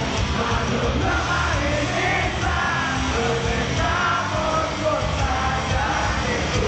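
Live rock music: a rock band playing, with a singer's voice over the band.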